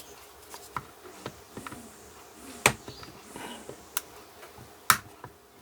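Sharp snips and clicks of the mosquito trap's plastic housing being cut to make room for a thicker wire. Two loud snips come about two and a half and five seconds in, with lighter handling clicks between.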